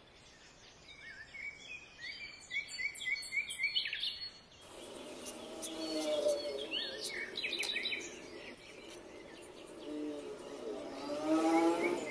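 Small birds chirping in quick, repeated short calls over a steady background hiss, with a lower pitched sound swelling near the end.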